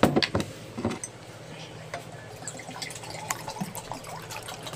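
A drinking glass set down on a tabletop with a knock, then water being poured from a plastic bottle into a glass.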